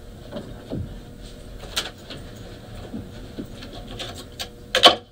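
Room noise of people moving about near open microphones: scattered clicks and knocks, with a louder sharp sound near the end.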